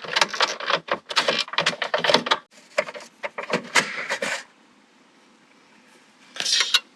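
Rapid plastic clicks and rubbing as a Samsung HAF-QIN refrigerator water filter is handled and twisted in its housing to unlock it. The noise stops about four seconds in and a short burst of clicks comes near the end.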